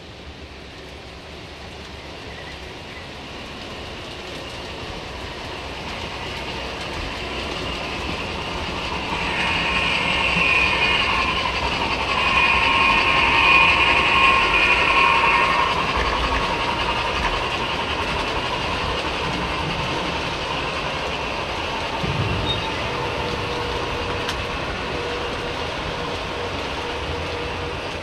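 O gauge model train running past with its digitally controlled onboard sound, the rolling noise growing louder as it approaches and peaking about halfway before easing off. Near the middle a long high-pitched tone sounds in two stretches.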